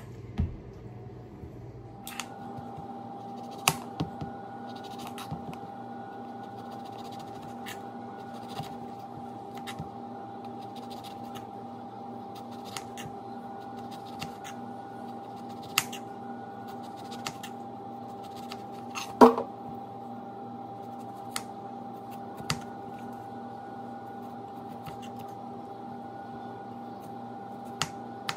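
Scattered sharp clicks and scrapes of a paring knife cutting into lemon peel and tapping the wooden cutting board, the loudest about two-thirds of the way through. Under them runs a steady hum with a held tone that starts about two seconds in.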